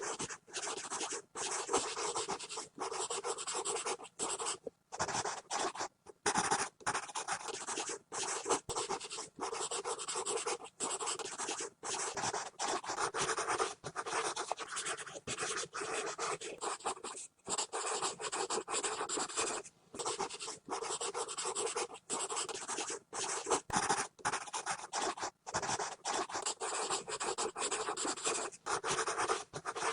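Pencil scribbling on paper: continuous scratchy strokes with brief pauses between them.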